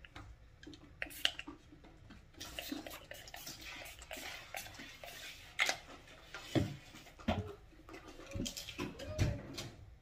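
Several quick hissing spritzes from a small pump-spray perfume bottle, among clicks and knocks as the cap and bottle are handled.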